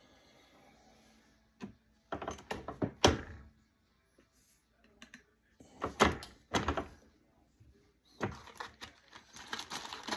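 Clicks and clatter of reloading tools and brass cartridge cases being handled, in several short bursts with quiet gaps between; the sharpest knock comes about three seconds in.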